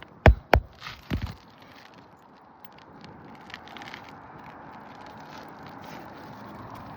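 Hammer strikes driving roofing nails through a replacement asphalt shingle: a few sharp blows in the first second and a half, then quiet scraping and handling noise.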